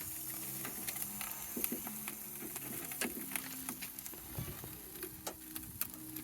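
Food sizzling on a barbecue grill, with many scattered sharp crackles and pops over a steady hiss.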